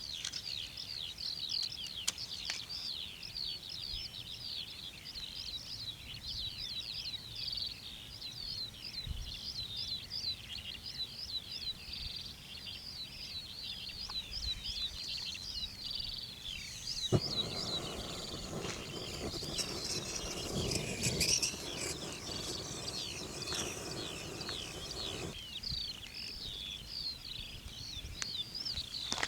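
Many small birds chirping continuously in a dense chorus of quick, high calls. Just past the middle a steady hiss starts with a sharp click, runs for about eight seconds and cuts off abruptly.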